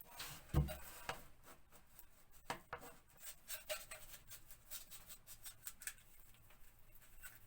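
Paste brush scratching and rustling against wallpaper as overlap adhesive is worked in behind a lifted edge, in quick irregular strokes, with one thump about half a second in.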